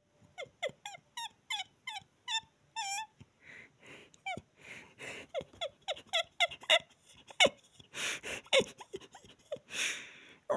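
A person laughing in a run of short, high-pitched giggles, about three a second at first, then breathy gasping laughter mixed with more giggles.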